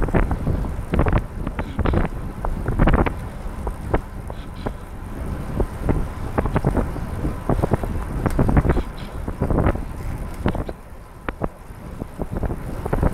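Wind buffeting the microphone of a camera riding on a recumbent trike, over a low rumble from the wet road, with irregular sharp taps and knocks scattered throughout.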